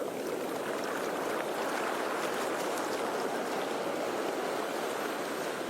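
Sea waves washing in, a steady rushing noise that swells slightly in the middle and eases again.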